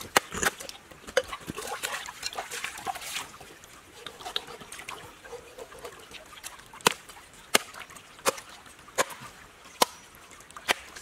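Cleaver chopping through a large fish on a wooden chopping board: sharp knocks, a few irregular ones at first, then steady strikes about every 0.7 seconds from about seven seconds in.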